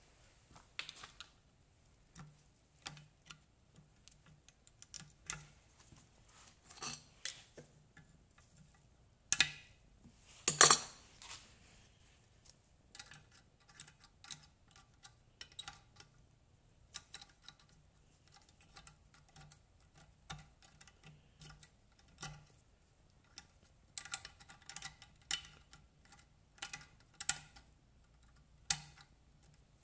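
Hand tools clicking and tapping irregularly at a quad's worn rear hub bearing as it is picked apart piece by piece, with two louder knocks about ten seconds in.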